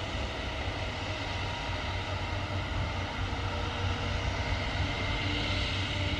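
Airbus A350 jet engines running at low taxi power: a steady rumble and hiss with a faint whine, growing slightly louder in the second half.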